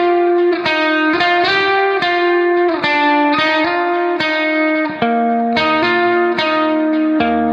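Background music: a plucked guitar playing a melody of ringing, sustained notes.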